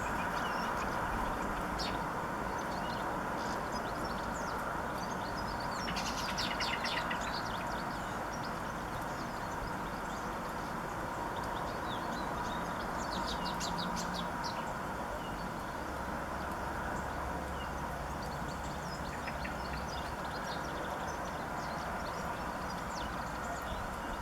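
Small garden birds chirping now and then, with two quick runs of twittering, about six seconds in and again near the middle, over a steady background rumble.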